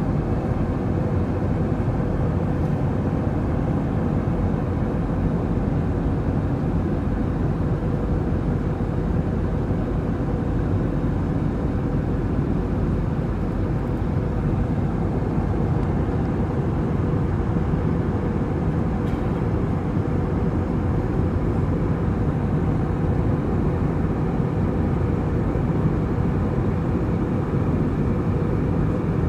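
Jet airliner cabin in cruise flight: the steady, even roar of the turbofan engines and the airflow over the fuselage, with a faint steady hum.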